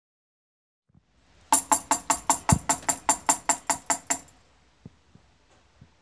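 A tambourine is struck in a fast, even run of about fourteen beats, roughly five a second, with its metal jingles ringing on each beat. The beats are the cockatiel pecking at the tambourine. The run starts about a second and a half in and stops a little after four seconds, followed by a couple of faint taps.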